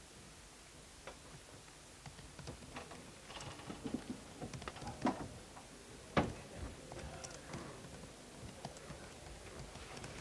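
Faint, irregular clicking of laptop keyboard typing, with one louder click about six seconds in.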